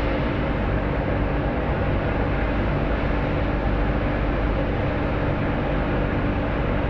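Car ferry's engines droning steadily, with a few constant hum tones over an even rushing noise, heard from the open deck.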